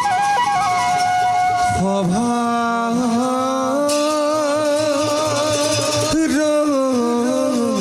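Traditional Assamese bhaona music: a long melodic line of held notes that bend slightly between pitches.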